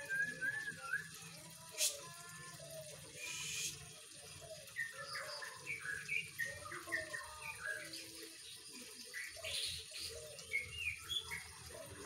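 White-rumped shama in full song: a fast, varied run of short rising and falling whistles and chirps. A single sharp click about two seconds in.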